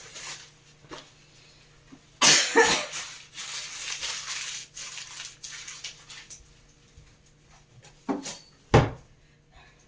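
Shopping being unpacked by hand: rustling and clatter of items being taken out and set down. There is a loud burst of clatter about two seconds in, rustling for a few seconds after it, and two sharp knocks near the end.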